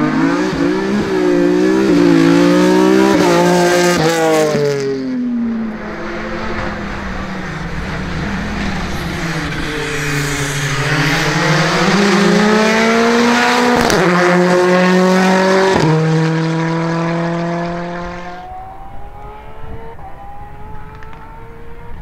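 Rally car engine under hard acceleration, its pitch climbing and dropping again and again through gear changes, with two sharp cracks about two-thirds of the way through. Near the end it fades into the distance while still accelerating.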